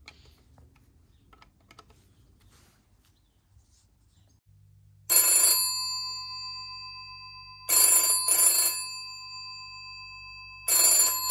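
Old black rotary-dial telephone's electromechanical bell ringing for an incoming call, in repeated bursts with a double ring, starting about five seconds in. Each burst rings on and fades before the next.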